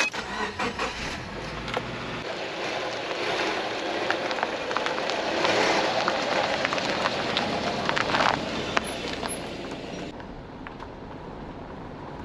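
A Subaru Forester's engine running as the car sets off, then its tyres rolling over a gritty paved road as it drives past, the noise swelling to its loudest around six seconds in. About ten seconds in this gives way to a quieter, steady rush of wind and road noise.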